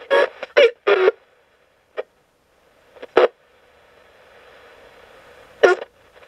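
Coopbox 26 ghost box radio sweeping the FM band in squelch mode: short chopped fragments of broadcast voice from its small speaker, cut off to silence between them, with a low hiss building from about halfway through.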